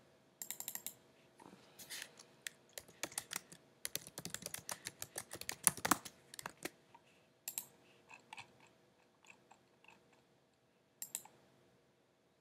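Typing on a computer keyboard: a quick run of key clicks for the first several seconds, thinning out into a few scattered clicks.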